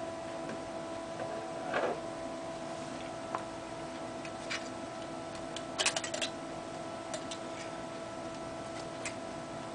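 Scattered small clicks and taps, with a quick cluster about six seconds in, from laptop hard-drive parts, screws and tools being handled. A steady electrical hum runs underneath.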